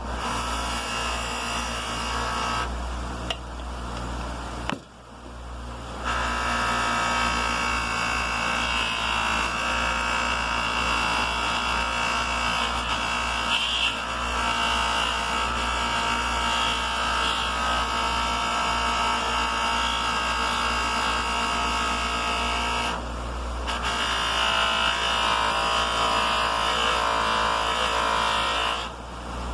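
Electric buffer with a fiber polishing wheel running steadily while a restored hammer head is polished with compound, a steady motor whine that dips briefly a few seconds in, about two-thirds through and near the end.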